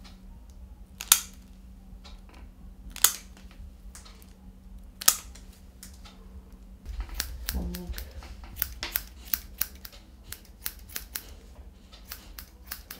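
Dog nail clippers snapping through an Airedale terrier's claws: three sharp clicks about two seconds apart, then a run of quicker, lighter clicks in the second half.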